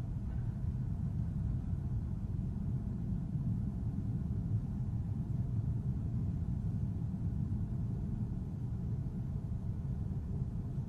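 Steady low rumble of outdoor city ambience, with no distinct blasts.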